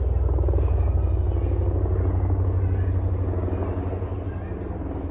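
Low rumble of a vehicle passing on the street, swelling about a second in and fading away over the next few seconds.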